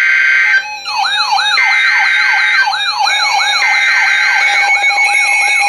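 EAS SAME header on NOAA Weather Radio: three short bursts of buzzy digital data tones, each about a second long with a second's gap, marking the start of an emergency alert. From about half a second in, a siren sweeps up and down in pitch about twice a second over the data tones.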